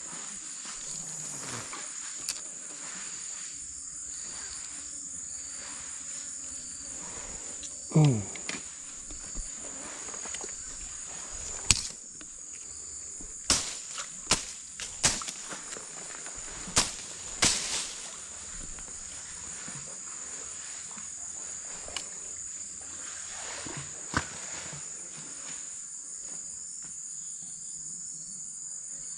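Steady high-pitched chorus of insects, crickets or cicadas, droning on without a break. Several sharp clicks and knocks cut through it between about 8 and 18 seconds in.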